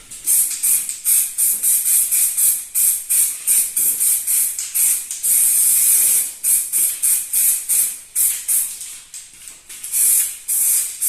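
Heat-resistant paint sprayed from a spray can, hissing in many short bursts, with a longer continuous spray about five seconds in and another near ten seconds.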